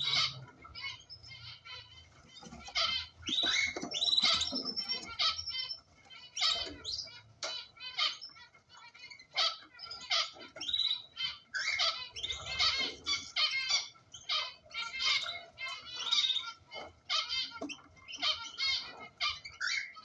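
Cockatiels chirping: many short, high calls in quick runs, with brief lulls.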